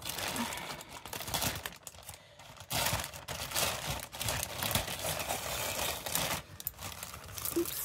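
Plastic mailer bag crinkling and rustling as it is handled, then cut open with scissors near the end, with a brief quieter lull about two seconds in.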